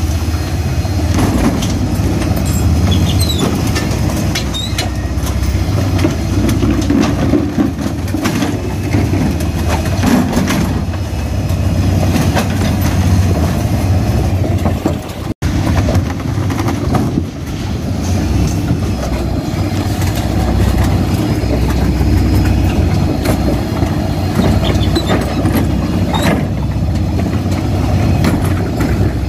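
Faun Rotopress refuse lorry working at the kerb: its diesel engine and drum body run with a steady low hum, while wheelie bins knock and clatter against the rear lifter as they are raised, tipped and set down. The sound drops out for a moment about halfway through.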